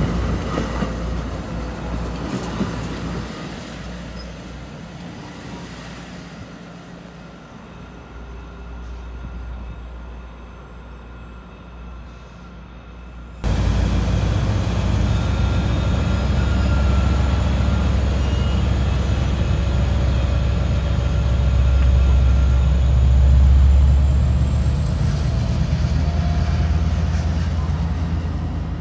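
EXO commuter train of bilevel coaches running past, its low rumble fading away. Then a sudden cut to an EXO diesel locomotive pulling in, its low rumble loud and swelling to a peak as the train passes close, with a faint high whine rising slowly in the last few seconds.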